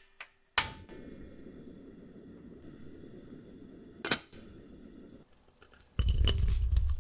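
A gas stove burner lights with a sharp click and then hisses steadily under a pot of potatoes in water. A glass pot lid clinks down onto the pot about four seconds in. Near the end, soft boiled potato chunks tumble onto a cloth in a glass bowl with a run of dull thuds.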